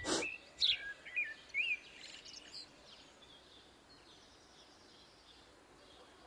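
A small bird chirping a few short calls in the first two seconds, after a sharp click right at the start; then only a faint steady hiss.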